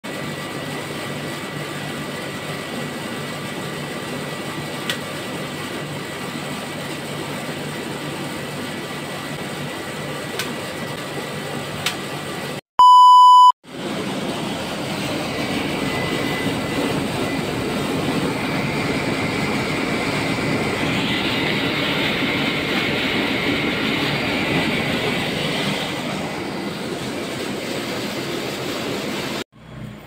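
Ice cream roll machine running: its compressor and condenser fan hum and hiss steadily. About thirteen seconds in, a loud, even beep about a second long sounds between two brief silences.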